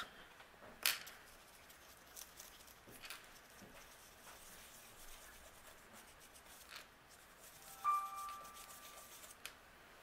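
Faint dabbing and rubbing of a mini blending brush on a paper stencil over cardstock as ink is applied in small dots. There is a sharp click about a second in and a brief steady high tone lasting about a second near the end.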